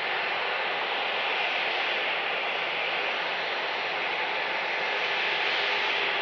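Airbus A320-family airliner's jet engines at taxi idle as it rolls past: a steady, even hiss that holds at one level throughout.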